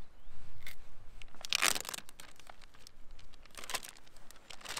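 Plastic zip-top bag crinkling as a cleaned trout is slipped into it, in bursts about a second and a half in and again near the end.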